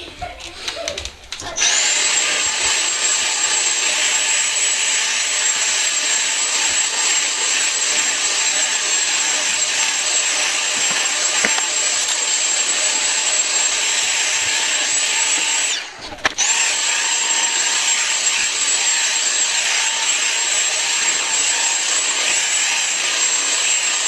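Dyson V7 Motorhead cordless stick vacuum running over carpet, a loud steady high-pitched whine. It switches on about one and a half seconds in, cuts out for about half a second around two-thirds of the way through, then starts again.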